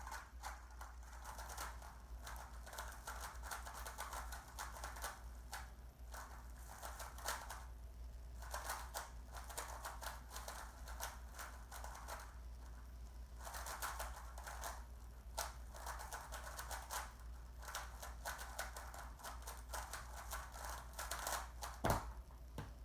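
Rubik's cube being turned fast in a speed-solve: rapid plastic clicking and clattering of the layers in quick runs, broken by brief pauses, over a steady low hum. A sharper knock comes near the end.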